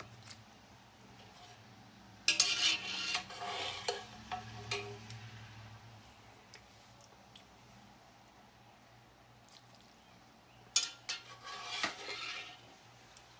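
Metal utensil clinking and scraping against a large cast iron dutch oven, a Birmingham Stove & Range #12, in two bouts: one about two seconds in lasting a couple of seconds, another about eleven seconds in.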